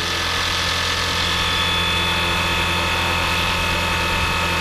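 Flywing Bell UH-1 Huey scale RC helicopter hovering in position hold: a steady motor whine and rotor hum made up of several held tones. A higher whine joins about a second in.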